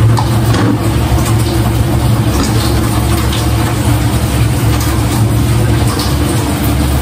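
Steady, loud low hum of running machinery, unchanging throughout, with a fainter hiss above it and a few faint ticks.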